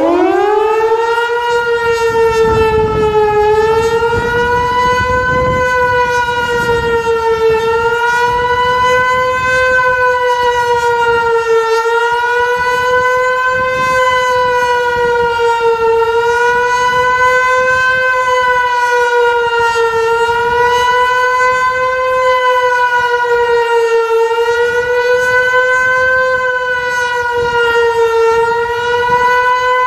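Hörmann HLS 273 electro-mechanical motor siren spinning up with a quick rising whine, then holding one loud steady howl that wavers slightly in pitch every few seconds during a test alarm.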